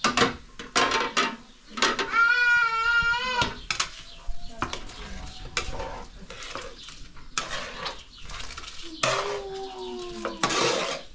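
Metal spoon clinking and scraping in a cooking pot, with the lid knocked against it. About two seconds in, a wavering high bleat-like call sounds for about a second and a half, and fainter calls come near the end.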